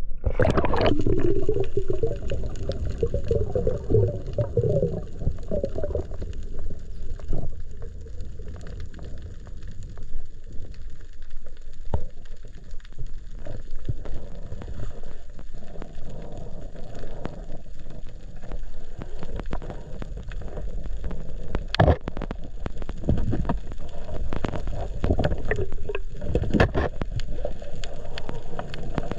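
Water heard through an action camera's underwater housing: bubbling and gurgling for the first several seconds as the diver goes under, then a low steady rumble with scattered clicks and a few sharp knocks, the clearest about 22 and 27 seconds in.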